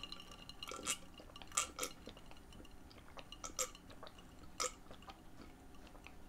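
A person gulping juice from a glass, close to the microphone: about half a dozen faint swallows, spaced irregularly.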